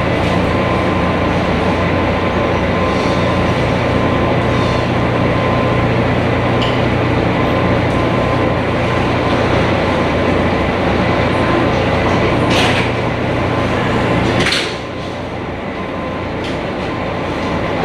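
Sightseeing boat's engine running steadily with a low, pulsing hum over a rush of water noise. About three-quarters of the way through, the engine drops to a quieter, lower setting as the boat eases off. There are a couple of sharp clicks just before the drop.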